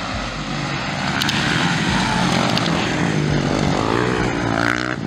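Several motocross bikes racing, their engines revving up and down through the gears, louder from about a second in. Near the end one bike revs hard close by, its pitch rising and falling.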